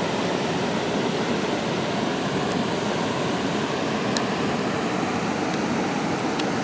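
The flooded Missouri River rushing through a stretch of whitewater, a steady rush of water noise.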